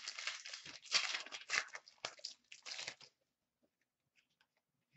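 Foil trading-card pack wrapper being torn open and crinkled in the hands, a run of sharp crackles that stops about three seconds in.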